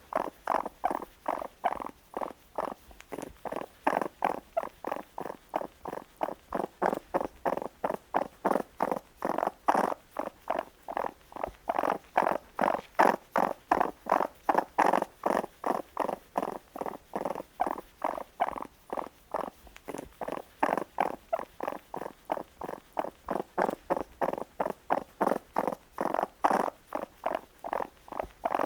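Baby raccoon calling in a steady run of short, repeated cries, about three a second.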